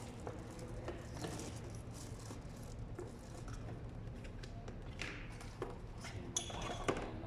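Scattered light clicks, knocks and rattles of objects being handled, over a steady low hum, with a brief busier clatter near the end.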